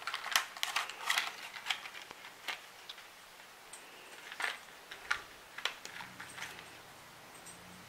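Plastic blister pack crackling and clicking as grow-capsules are pressed out of it by hand: a quick run of sharp clicks in the first couple of seconds, then a few separate clicks.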